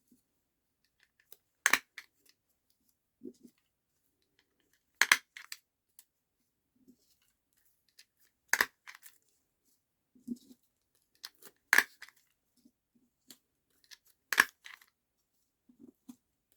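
A stapler snapping shut through layered paper scraps and net packaging, five sharp clicks about three seconds apart, each with a quick after-click, with soft handling knocks of the paper in between.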